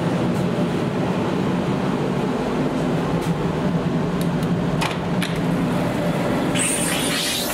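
Steady hum of a Waratah double-deck train carriage and its air conditioning, with a few clicks about five seconds in as the push-button doors are opened, and a brief hiss near the end.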